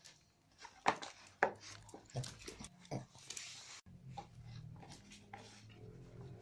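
Homemade slime being stirred and worked with a spoon in a plastic tub: a run of sticky clicks and wet smacks, with a low steady hum coming in about four seconds in.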